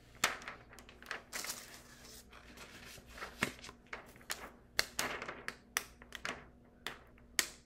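Crinkling and rustling of plastic film and a paper sheet being handled and smoothed flat by hand over a rhinestone template, with irregular sharp clicks and taps.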